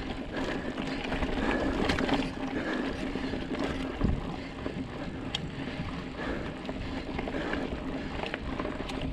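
Mountain bike rolling over a rough, stony dirt track: tyres on loose gravel and the bike rattling over bumps, with a louder knock about four seconds in. Wind on the microphone.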